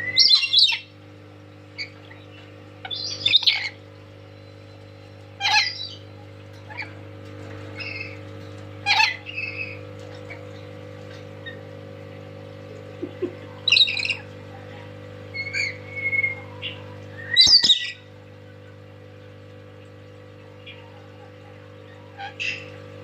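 Pet lory giving loud, shrill squawks and chirps in short bursts every few seconds, over a steady background hum.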